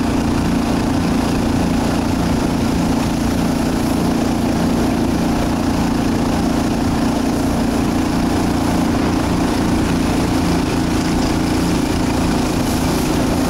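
A marsh boat's small engine running steadily at speed while the boat is under way.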